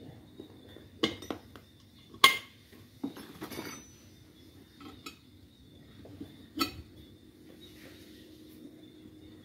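Metal tyre levers clinking and scraping against a motorcycle's cast alloy wheel rim as the tyre bead is levered onto it. A few separate sharp clinks, the loudest a little over two seconds in, a short cluster just after three seconds, and another about six and a half seconds in.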